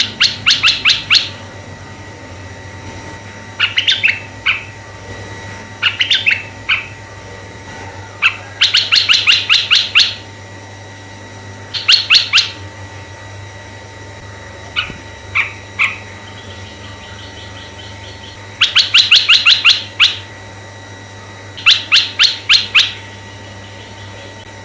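Asian red-eyed bulbul calling: short bursts of rapid, bright chattering notes, each burst about a second long, repeated every two to three seconds.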